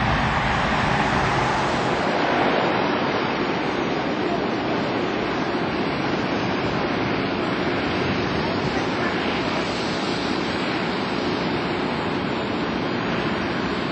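Jet airliner engine noise: a roar that is loudest in the first two seconds, as a jet climbs away after takeoff, and then settles into a steady, even rush.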